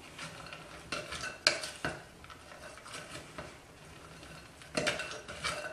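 Wooden spoon stirring chopped fruit and nuts in a glass mixing bowl, with a few sharp knocks of the spoon against the glass and a cluster of them near the end.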